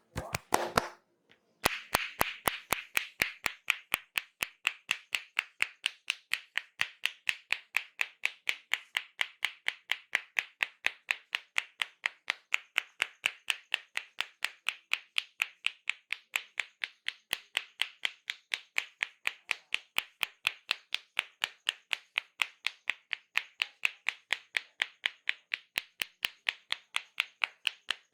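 Barber's hands striking a person's head in a fast, steady rhythm of sharp clap-like slaps, the percussive tapping stroke of an Indian head massage. A few slaps at the start, a brief pause, then an unbroken run of several slaps a second.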